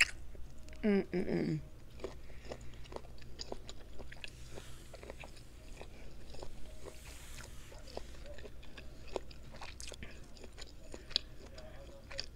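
Close-up chewing and biting of seafood-boil food, with many small wet clicks and smacks of the mouth. A short hummed "mm" comes about a second in.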